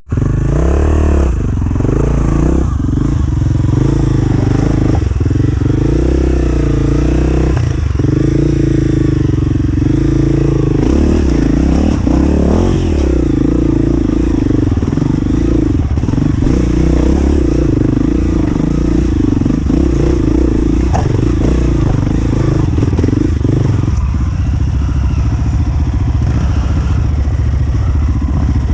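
Off-road dirt bike engine running hard, the revs rising and falling again and again as the throttle is worked. In the last few seconds it settles to a lower, steadier note.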